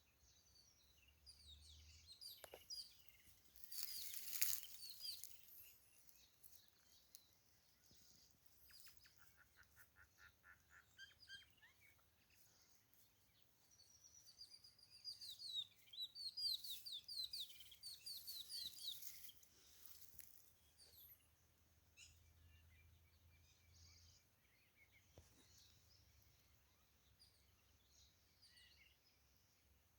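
Faint birds chirping in scattered bouts: quick runs of high chirps about 2 to 6 seconds in and again about 14 to 20 seconds in, with a short lower trill in between.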